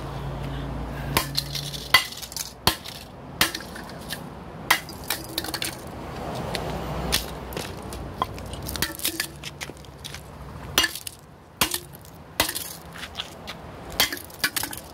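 Irregular sharp clicks and clatters of broken plastic VHS cassette pieces being moved about on concrete, with a sharper one about two seconds in and a quick cluster near the end.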